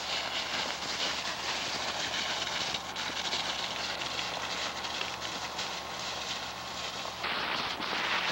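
Footsteps rustling and crunching through a thick layer of dry fallen leaves, a steady run of small crackles that grows louder near the end.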